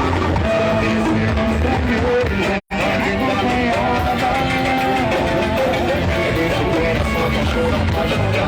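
Loud music with guitar, singing and strong bass, cutting out completely for a split second about two and a half seconds in.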